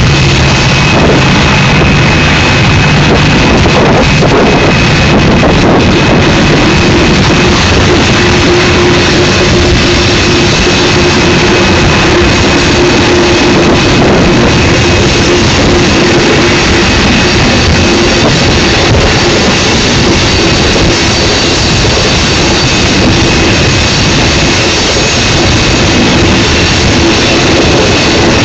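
Union Pacific manifest freight train rolling past at close range: a loud, steady rumble of wheels on rail, with a thin high tone held throughout and a lower steady tone joining about eight seconds in.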